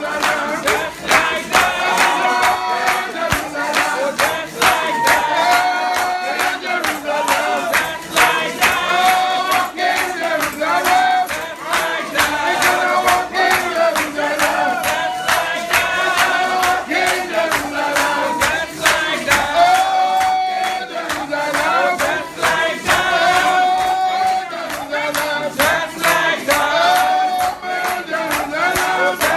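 A congregation singing a hymn together in many voices, with a steady percussive beat running under the singing.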